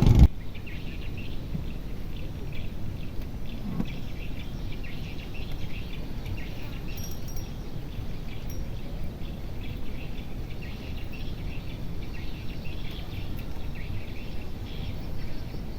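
Outdoor riverside ambience: a steady low noise with faint high chirping of insects and birds throughout.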